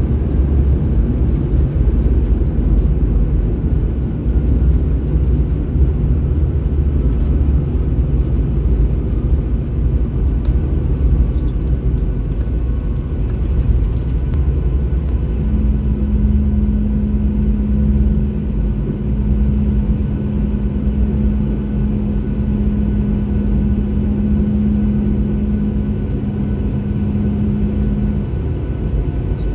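Jet airliner cabin noise while taxiing after landing: a steady low rumble. About halfway through, a steady low hum joins in and cuts off shortly before the end.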